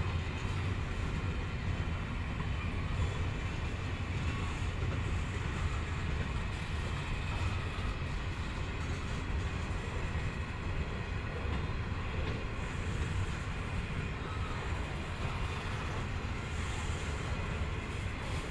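Loaded grain hopper wagons of a long freight train rolling steadily past on the track: an even, continuous noise of steel wheels running on the rails, heaviest in the low end.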